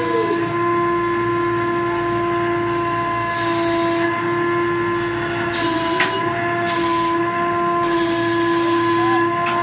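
Fishing boat's deck machinery running steadily: a whine of several steady pitches over a low rumble, with a hiss that comes and goes a few times and a sharp knock about six seconds in.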